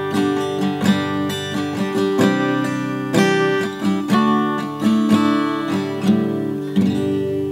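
Background music: acoustic guitar picking and strumming a run of plucked notes and chords.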